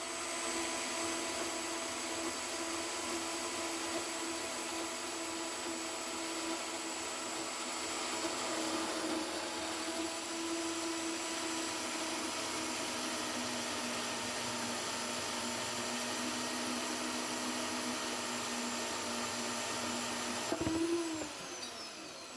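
Metal-cutting band saw running through a 45-degree cut in steel: a steady motor whine with the hiss of the blade. About twenty seconds in there is a click and the saw winds down, its whine falling in pitch as it fades.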